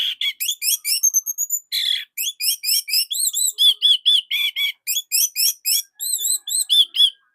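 Orange-headed thrush singing a loud, fast series of short, sharp repeated notes, about four a second, with a rising whistle about a second in. The song stops near the end.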